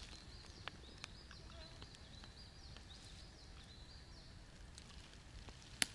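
Faint birdsong: a run of quick, high chirps, with a few soft clicks and one sharp click near the end.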